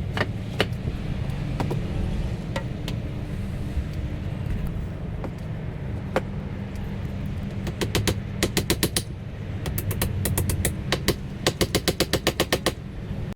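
Hammer tapping finishing nails into a fascia board: a few separate strikes, then quick runs of light taps in the second half. A steady low rumble runs underneath.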